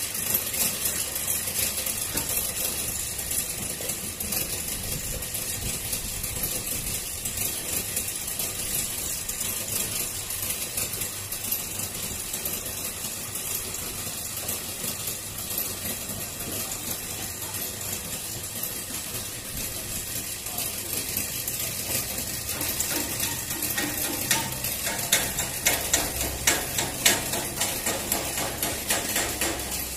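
Steady mechanical rattling with fast, dense clicking. From about two thirds of the way in, sharper knocks come at a fairly regular beat, like metal being struck.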